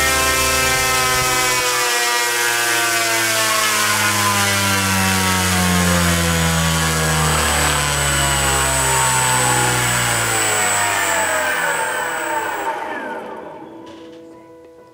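Turnigy G-46 brushless outrunner motor driving a propeller on a thrust stand: a loud, high whine with a rushing hiss of prop wash, its pitch sinking slowly, then winding down quickly and fading out near the end.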